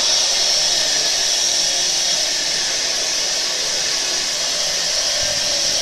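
Wood gasifier and generator set running: a loud, steady, even hiss of blowing air and gas.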